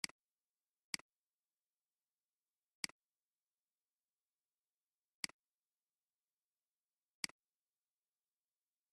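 Computer mouse button clicking five times at uneven intervals, each a sharp press followed at once by a softer release, with dead silence between.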